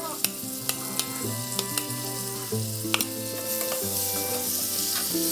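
Food frying and sizzling in a pan, with sharp clicks of a utensil against the pan as it is stirred. Instrumental background music with stepped notes plays underneath.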